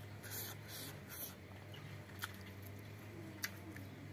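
Three short hissing breaths drawn through an open mouth in the first second and a half, the sort a person takes while eating fiery chilli-laden food, followed by a few faint mouth clicks and smacks.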